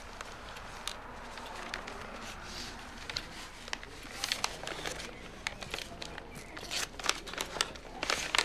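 Paper crinkling and rustling as a mailed package is opened and its newspaper wrapping is pulled apart by hand: a run of irregular crackles that grows busier and louder after about four seconds.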